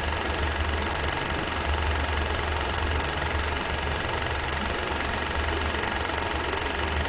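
Film projector running: a steady mechanical whirr over a low hum and hiss.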